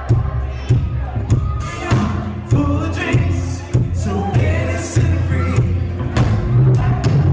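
Live band playing loud music: drums keep a steady beat, with bass and guitars under several voices singing.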